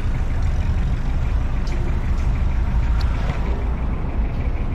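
Steady low engine and road rumble heard from inside a minibus taxi.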